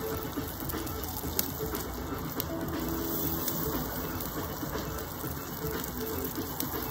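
Corn cobs and melted butter sizzling on a hot barbecue grill over open flame, a steady hiss broken by scattered sharp crackles and spits.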